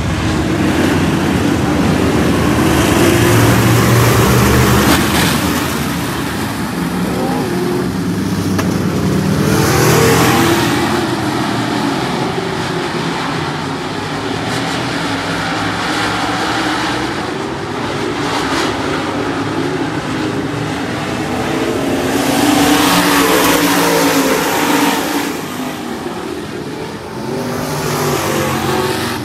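A pack of dirt-track race cars racing past, their engines running hard. The sound swells and fades in several loud waves as the field comes by.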